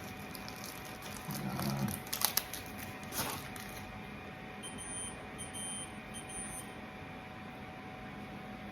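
A few light clicks and knocks of plastic parts being handled, then three short high electronic beeps in a row about halfway through.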